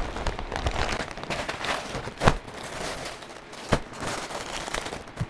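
Plastic packaging crinkling and rustling as it is handled and pulled open by hand, with two sharper knocks a little over a second apart near the middle.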